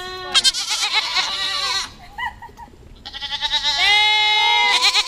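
Goats bleating: two long, quavering bleats, the first fading out about two seconds in, the second starting about a second later.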